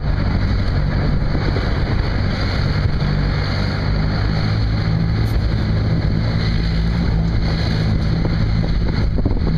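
Vehicle engine running at a steady pitch, mixed with road rumble and wind noise, as heard riding in the vehicle over a rough road.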